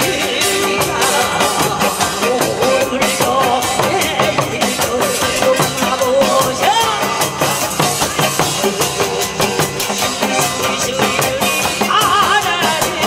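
Korean folk drumming: a janggu hourglass drum and buk barrel drums beaten in a busy, steady rhythm over amplified backing music with a melody line.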